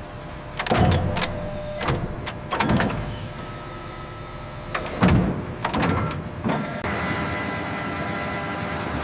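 Sawmill machinery: bursts of knocking and clattering, then a steady machine hum with a high whine from about seven seconds in.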